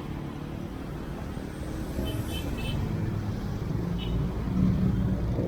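Street traffic rumbling steadily, swelling toward the end as a vehicle draws near.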